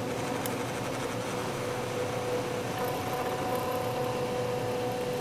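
MakerBot Thing-O-Matic 3D printer running as it starts a print: a steady mechanical whine from its stepper motors and cooling fan, with a higher whine that comes in briefly in the second half.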